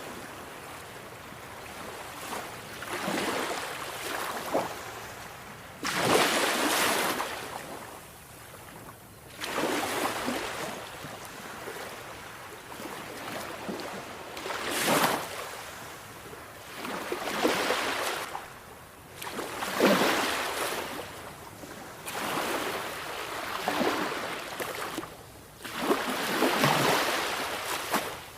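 Sea waves breaking on a shore: a steady wash of surf that swells into a separate breaking surge every two to five seconds, each one hissing and then fading back.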